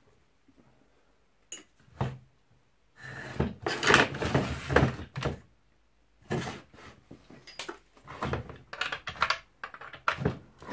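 Irregular thunks, clicks and scraping as the parts of a Stihl 034 AV chainsaw and hand tools are handled and worked during disassembly. A dense clatter of scraping runs from about three seconds in to five and a half, and scattered knocks follow.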